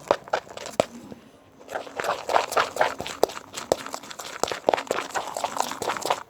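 Clear-glue and detergent slime being stirred in a container just after activator drops go in: quick, irregular sticky clicks and crackles, sparse at first and busier from about two seconds in.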